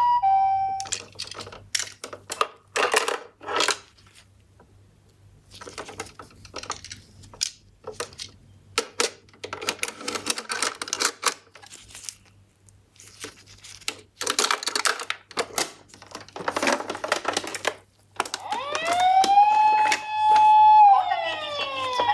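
Toy minicars clattering and knocking in an irregular run of clicks. Near the end a toy ambulance's electronic siren wails: it rises, holds a steady high note for about two seconds, then falls away.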